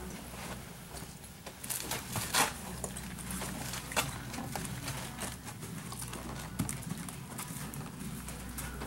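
Hoofbeats of an American Quarter Horse mare walking on arena footing: irregular knocks and clicks, a few of them louder, about two and four seconds in.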